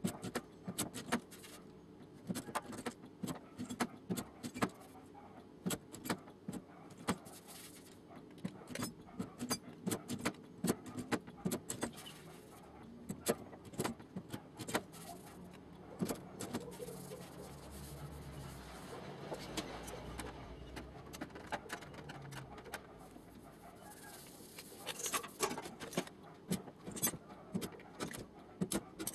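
Light metallic taps in quick, irregular succession: a body hammer working the sheet steel of a car door during fine panel straightening. Through the middle, a steadier noise sits under the taps.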